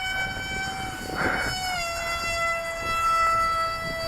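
Electric motor and propeller of an FPV model plane whining at a steady pitch in flight. The pitch drops slightly just under two seconds in as the throttle eases. A low wind rumble sits underneath.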